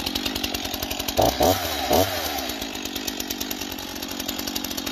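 Brand-new STIHL MS 251 Wood Boss two-stroke chainsaw running just after being started, revved up briefly three times about a second in, then settling back to a steady run.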